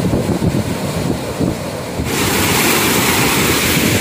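Sea surf breaking and washing in over the shallows, with wind rumbling on the microphone. About halfway through, the surf hiss turns suddenly brighter and louder.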